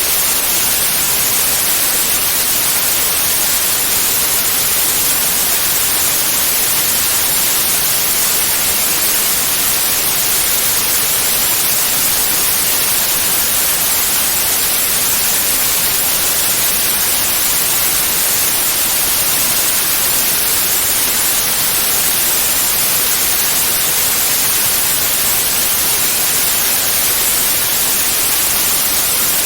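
Steady white noise: an even, unchanging hiss, brightest in the high end, generated as a tinnitus-masking sound.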